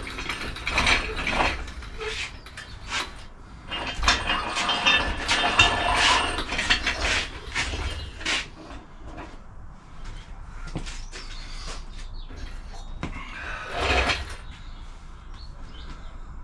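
Metal clanks, knocks and ratchet-like clicking from hand tools and engine-stand hardware, thickest in a busy run a few seconds in and again near the end.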